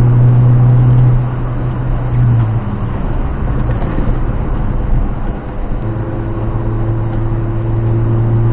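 Lada Niva 1.7's engine droning steadily at highway speed over tyre and road noise, heard from inside the cabin. The drone fades for a few seconds about two and a half seconds in and comes back strongly near six seconds.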